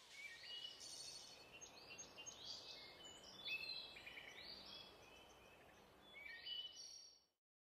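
Faint birds chirping in short, high calls over a soft hiss. It cuts off suddenly near the end.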